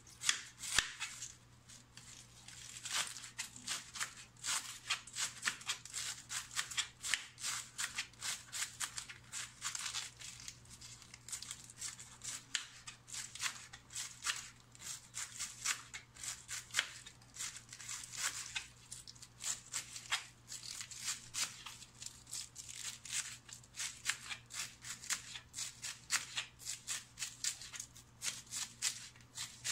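Kitchen knife shredding a head of green cabbage on a cutting board: a rapid, uneven run of crisp slicing crunches, several a second, as the knife cuts through the layered leaves and taps the board.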